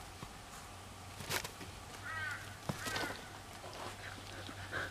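A crow cawing twice in quick succession, a couple of seconds in, with a few light knocks and a faint low hum underneath.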